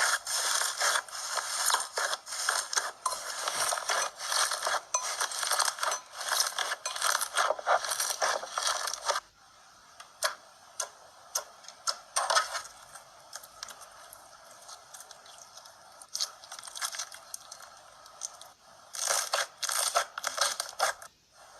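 Slime being squeezed and worked by hand, crackling and popping densely for about nine seconds. It then goes quieter with scattered pops, and a short burst of crackling comes near the end.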